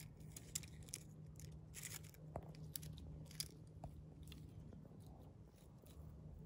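Faint crackling and rustling of a young hedgehog foraging, nosing through dry leaves, twigs and acorns: a scatter of small crisp clicks and crunches at irregular intervals over a low steady hum.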